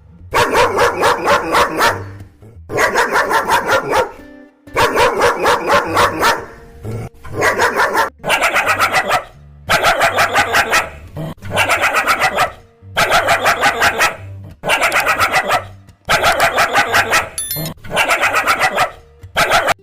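A dog barking in quick runs: about a dozen bursts of rapid, evenly spaced barks, each burst lasting a second or two, with short pauses between.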